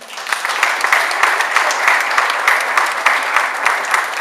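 Audience applauding: a dense clatter of many hands clapping that starts abruptly and holds steady.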